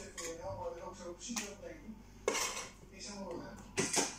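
Kitchen clatter of dishes and utensils: a few sharp clinks and knocks, the loudest cluster near the end, with a voice speaking softly in between.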